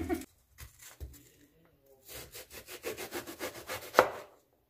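Chef's knife dicing an onion on a plastic cutting board: a fast run of short knocks, several a second, from about two seconds in, ending in one louder knock about four seconds in.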